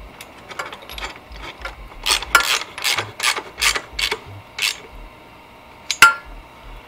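Ratchet wrench with a socket extension clicking in a run of sharp ticks, about three to four a second, as the nut on the engine-guard bolt is run down. One louder metallic clack comes about six seconds in.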